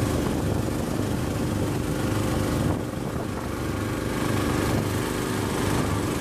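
Motorboat engine running steadily at speed, with water rushing past the hull. The sound dips briefly about halfway through.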